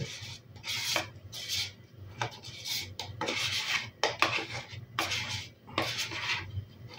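A metal spoon scraping the inside of a plastic crème fraîche tub to get out the last of it, in short repeated rasping strokes about two a second, with an occasional light click of spoon on plastic.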